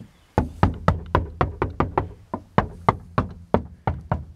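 Knuckles rapping repeatedly on a cargo van's sheet-metal side panel, about four knocks a second with a short break about two seconds in. This is the damped side: the panel has a 3 cm foam damping sheet glued to its inside, and the knocks are quite considerably more damped than on bare metal.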